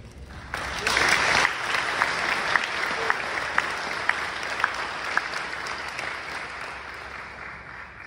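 Audience applauding. It starts about half a second in, is loudest a second later, and fades away near the end, with single sharp claps from someone close by standing out about once a second.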